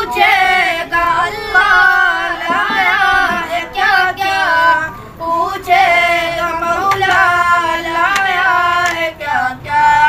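A solo voice singing an Islamic devotional naat in long melodic phrases with wavering, ornamented pitch.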